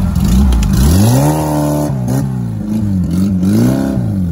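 Off-road 4x4's engine revving hard in repeated bursts, its pitch climbing and dropping several times, with one higher rev held briefly about a second in.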